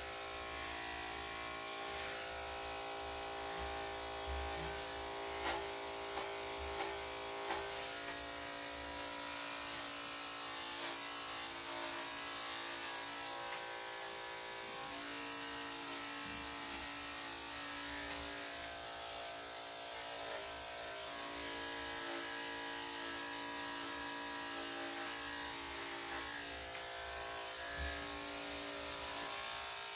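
Electric dog clippers fitted with a #7 blade running with a steady motor buzz while clipping a Lhasa Apso's coat. A few soft knocks come between about four and eight seconds in.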